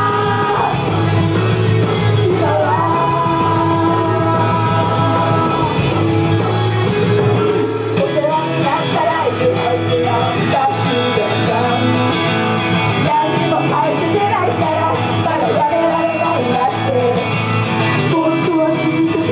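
Live idol-pop performance: rock-style band music with girls singing into handheld microphones, long held notes at first, then a busier passage about eight seconds in.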